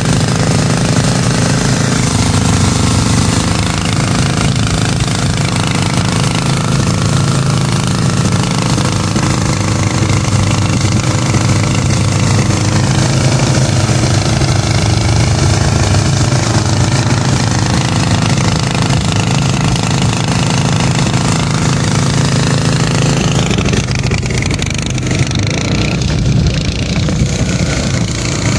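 Small single-cylinder petrol engine, a portable generator-type engine turning a large fan, running steadily and loudly at full throttle.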